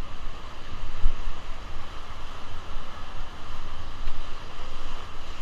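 Rushing whitewater around a raft on a river, with wind buffeting the microphone.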